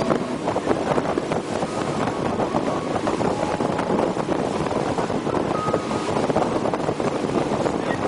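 Motorboat running at speed: its engine under a steady rush of water and wind buffeting the microphone.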